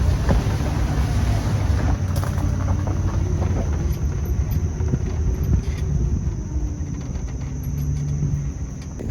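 A vehicle's engine running as it is driven: a loud, low hum whose pitch shifts a little, easing off near the end.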